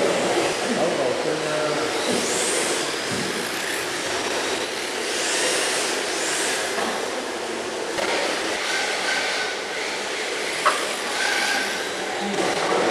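Electric motors of Kyosho Dancing Rider RC motorcycles whining past, their pitch swinging up and down as they go by, over a steady hiss. One sharp click about ten seconds in.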